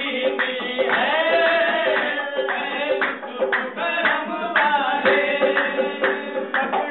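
Qawwali: several men singing together over a harmonium's held chords, with rhythmic hand clapping.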